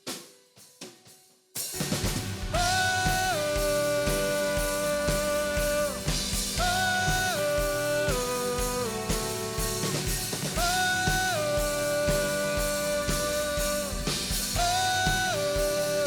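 Live band recording of a song, in an instrumental passage: after a second and a half of near quiet, drums, bass and a held melodic phrase come in together and play on steadily, the phrase repeating about every four seconds.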